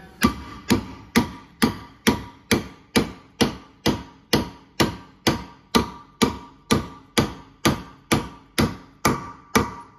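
Hammer blows on a mandrel, driving an injector sleeve down into its bore in a Leyland 4/98 or 6/98 cylinder head. About twenty-two even strikes come a little over two a second, each with a short metallic ring.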